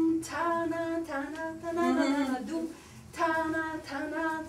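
A woman singing the dance tune wordlessly, unaccompanied, in two phrases of held notes with a short break between them.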